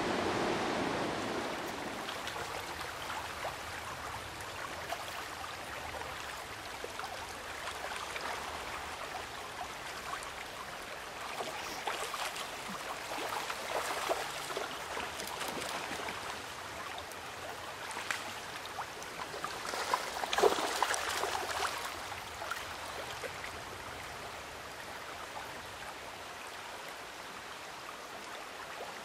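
Shallow creek water running steadily over rocks. It swells louder for a moment around twelve to fourteen seconds in, and again around twenty seconds in.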